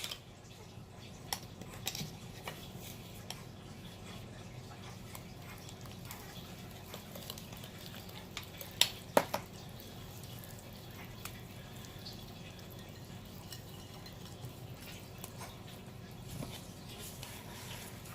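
Utensil stirring semolina batter in a mixing bowl, with scattered light clinks and two sharper knocks against the bowl about nine seconds in.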